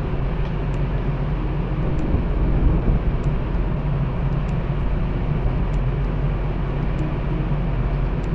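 Steady low rumble of ship engines, the ferry's and the tugboat's working close alongside, over the wash of propeller-churned water.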